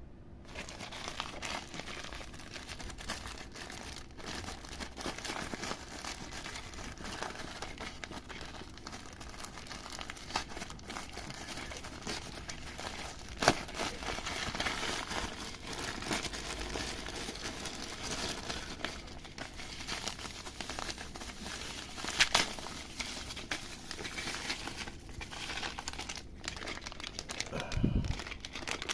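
Parcel packaging crinkling and tearing as it is handled and opened by hand, with a few sharp crackles along the way and low thuds near the end.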